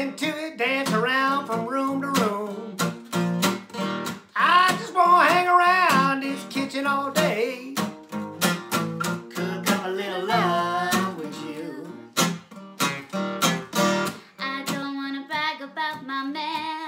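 Gibson acoustic guitar strummed and picked, accompanying singing in a rhythm-and-blues song.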